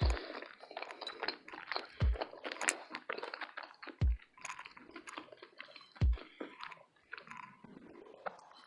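Close-miked chewing of a plant-based Philly steak burrito: dense wet crackles and crunchy clicks of mouth sounds, with a low thump about every two seconds.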